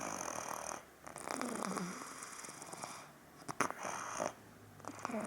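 A two-year-old toddler snoring in his sleep with a rattling rasp that sounds like a motorcycle. There are four snoring breaths, the second one the longest.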